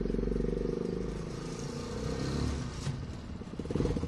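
Engine of a small enclosed three-wheeled motor vehicle running as it drives up, a steady pulsing drone that grows louder near the end as it comes close.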